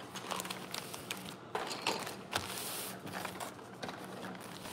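Light clicks, taps and rustles of small craft supplies being handled on a wooden table, with a brief hiss about two and a half seconds in.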